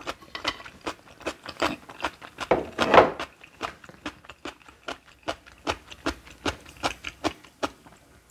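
Kitchen knife chopping on a cutting board in a steady rhythm, about three strokes a second, with one heavier stroke about three seconds in.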